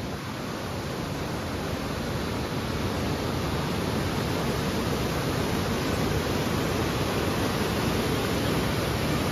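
Steady rush of a waterfall, growing slowly louder.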